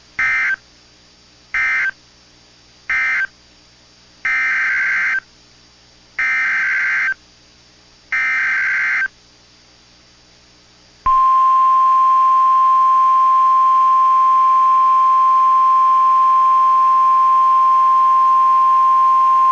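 NOAA Weather Radio Emergency Alert System tones. First come three short SAME data bursts, the end-of-message code closing the previous warning. Then come three longer SAME header bursts, and about eleven seconds in, the steady 1050 Hz warning alarm tone starts and holds, announcing a new tornado warning.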